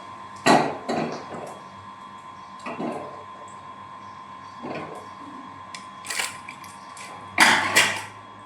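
Kitchen dishes and utensils clattering in a handful of short knocks and scrapes, the loudest pair near the end, over a steady hum.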